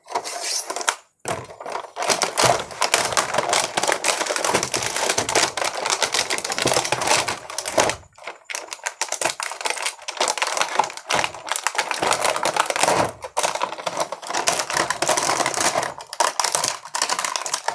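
Plastic wrapping around ceiling-fan blades crinkling and crackling as the blades are handled and pulled from their packaging: a dense run of small crackles, broken by short pauses about a second in and about eight seconds in.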